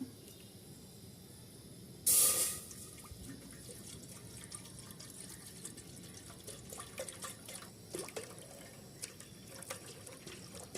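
Water poured into a karai heating on a stove: a brief loud splash about two seconds in, followed by faint ticks and crackles.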